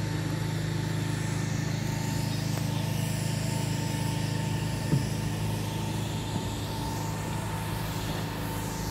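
An engine running steadily with an even low hum and a faint steady whine above it, and one sharp knock about five seconds in.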